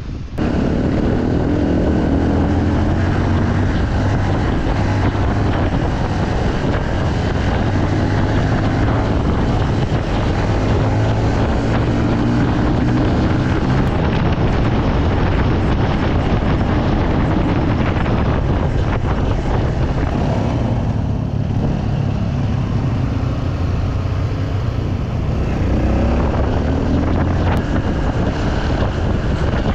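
Honda CRF150L's single-cylinder four-stroke engine pulling under way, its pitch rising several times as the throttle is opened. Heard from on the bike with wind on the microphone.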